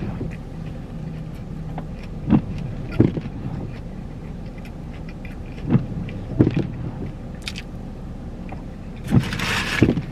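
A person eating a burger, with short sharp bites or chews in pairs every few seconds over a steady low hum, and a brief rustle near the end.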